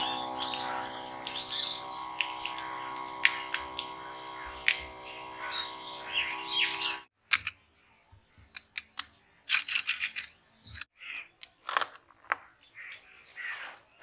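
A sewing machine motor converted into a small water pump running with a steady hum, birds chirping over it. The hum stops abruptly about halfway through, leaving birds chirping and a few light clicks and knocks of the motor being handled.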